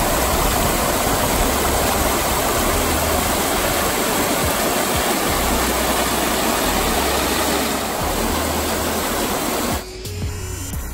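River water pouring over a low rock ledge in a small cascade: a steady rushing splash that cuts off abruptly near the end.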